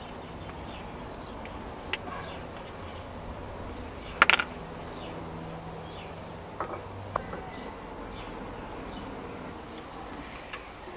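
A few sharp metallic clinks as rear disc-brake pads are pulled out of the caliper bracket and handled, the loudest about four seconds in, over a steady background.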